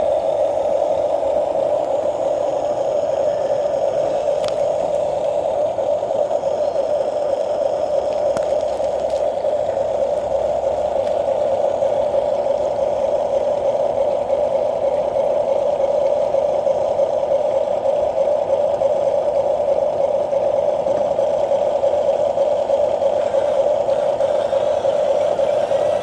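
A small electric motor running at a constant speed, a steady unchanging whine.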